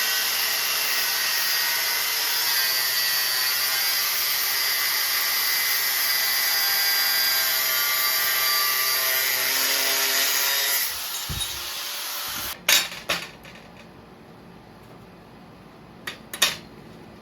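A power tool runs steadily for about eleven seconds, then stops. A few sharp clanks follow, two close together and then two more a few seconds later.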